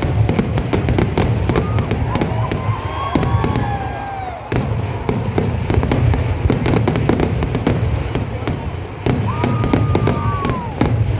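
Festival fireworks display: a dense, rapid crackle of firecrackers and shell bursts. Two whistling glides falling in pitch sound over it, once in the first half and once near the end.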